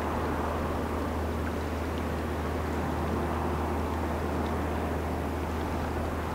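Steady low drone of a large lake freighter's engines under way on the river, the gearless bulk carrier Tim S. Dool.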